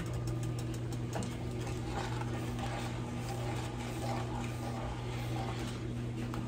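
A steady low mechanical hum throughout, with a spoon lightly scraping and clicking as it stirs a sugar-and-water glaze heating toward the boil in a stainless skillet.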